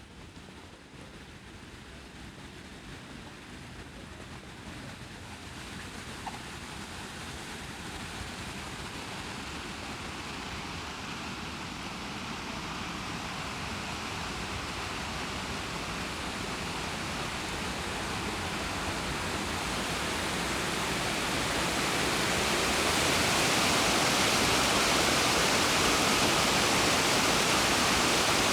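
Rushing water of a cascade or weir on the river, a steady rush that grows gradually louder and levels off near the end.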